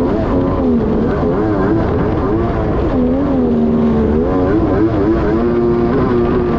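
Kawasaki 1100 two-stroke triple engine of a stand-up jet ski running hard, its pitch rising and falling again and again, over a steady rush of water spray.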